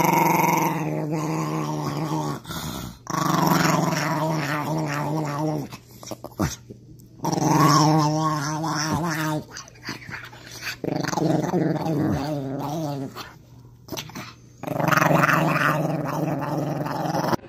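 Small Chihuahua-type dog growling, baring its teeth, in about five long drawn-out grumbles of two to three seconds each with short pauses between them.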